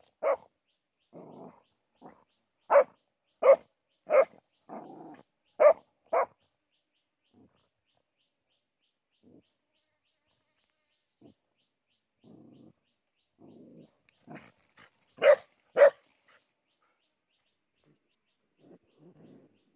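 A dog barks in short, sharp barks while digging at an animal's burrow: a run of six in the first six seconds, then two more close together around fifteen seconds. Quieter scuffling fills the gaps as it digs.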